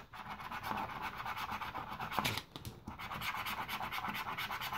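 A Swisslos Subito lottery scratch card being scratched off in rapid back-and-forth strokes, with a short pause just over halfway through.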